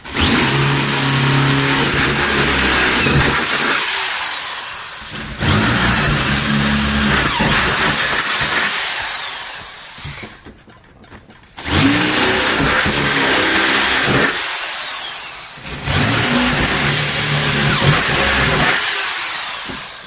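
Electric drill boring four holes into a door one after another, each run about four seconds long, its motor whine rising and dipping under load and easing off at the end of each hole.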